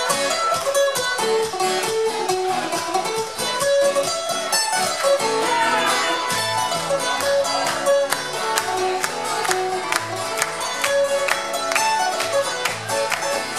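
Live Irish folk music played on acoustic guitars: a quick plucked and strummed passage without singing. Lower notes join in about five seconds in.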